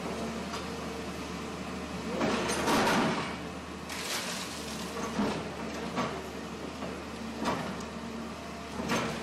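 Hyundai excavator running steadily as it breaks down concrete walls: a long crunching crash of breaking concrete and debris about two seconds in, then several shorter cracks and crashes of rubble.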